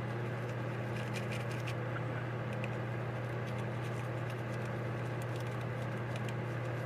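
Faint scattered clicks and light taps from small carburetor parts being handled, over a steady low hum.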